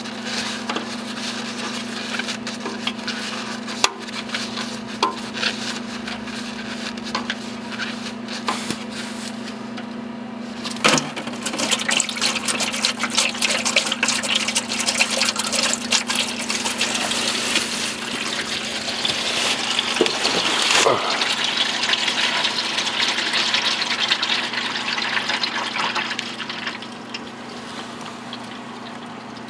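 Engine oil draining from the oil pan's drain hole and splashing into a drain pan. It starts right after a sharp click about eleven seconds in, grows stronger, then tails off near the end. Before that there are only light handling clicks.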